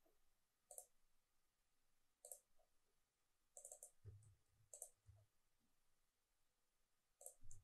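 Faint, scattered clicks of a computer mouse and keyboard, about half a dozen, some in quick pairs, with a few soft low thumps in the second half.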